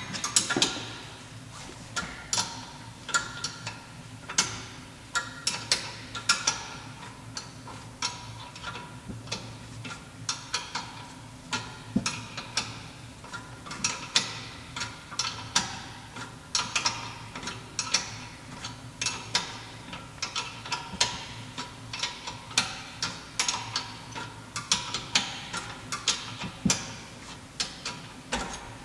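Ratcheting spanner clicking in short, uneven runs as a rear brake caliper bolt is unscrewed.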